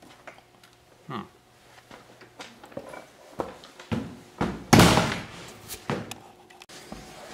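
Scattered knocks, taps and rustles of someone moving about and handling things, with one loud thump about five seconds in and a short falling tone about a second in.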